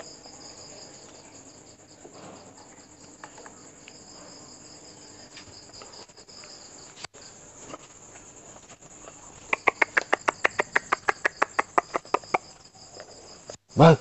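Steady chirring of crickets. About two-thirds of the way in, a fast run of sharp clicks, about nine a second, lasts some three seconds, and a short loud burst comes just before the end.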